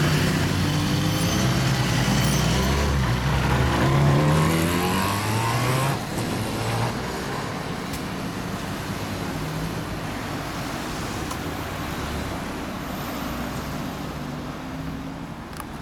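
BMW S1000RR inline-four motorcycle pulling away and accelerating, its engine note rising in several steps as it shifts up. About six seconds in it drops away and fades into steady road traffic noise.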